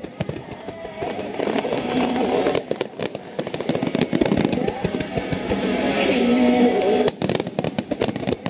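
Fireworks bursting and crackling in rapid, overlapping volleys, with a dense cluster of cracks near the end, over music playing along with the show.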